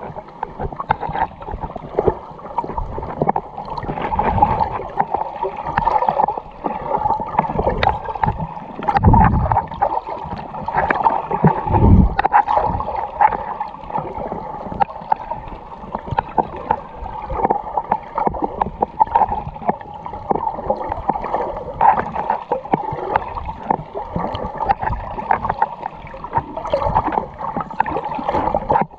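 Underwater sound picked up by a snorkeler's camera: water gurgling and swirling around the housing, with scattered small clicks and two low rumbles about nine and twelve seconds in.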